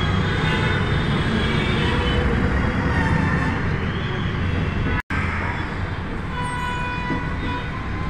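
Dense city traffic: a steady low rumble of engines with vehicle horns sounding now and then, including one held horn near the end. The sound drops out for an instant about five seconds in.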